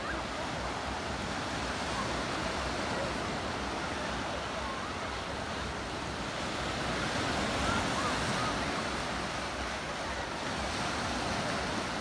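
Small sea waves breaking and washing in steadily on a beach, mixed with the faint shouts and chatter of many bathers in the water, and wind on the microphone.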